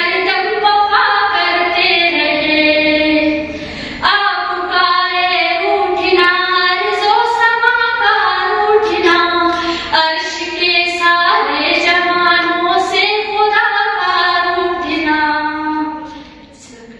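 A female voice reciting a naat unaccompanied, singing long, ornamented melodic lines. There is a short breath pause about four seconds in, and the voice fades out near the end.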